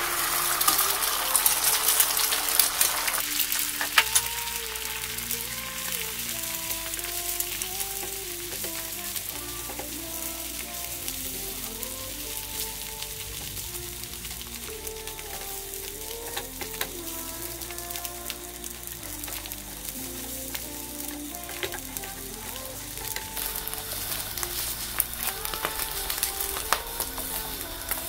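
Beaten eggs sizzling in hot oil in a nonstick frying pan. The sizzle is loudest in the first three seconds as the eggs hit the pan, then settles to a steady frying hiss, with now and then the click and scrape of a spatula stirring them. Background music plays under it.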